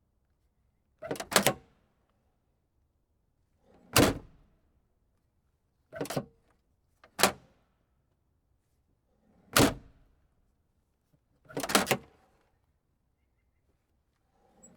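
A car trunk lid being shut again and again, each time a solid thunk of the latch catching. There are about six slams two to three seconds apart, a few of them with a quick double knock.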